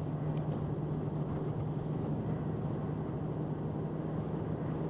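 Box truck cruising steadily on the highway, heard from inside the cab: a constant low hum from the drivetrain under an even rumble of road noise.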